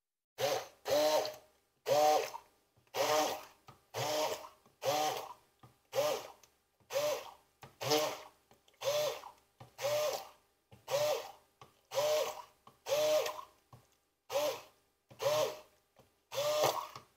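Electric immersion (stick) blender pulsed on and off about once a second. Each short burst of motor whine spins up and cuts off as the blades break up thick ricotta curds into a smooth texture.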